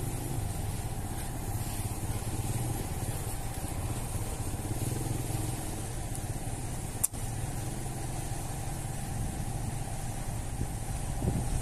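A small engine running steadily in the background, an even low hum that does not change. A single sharp click about seven seconds in.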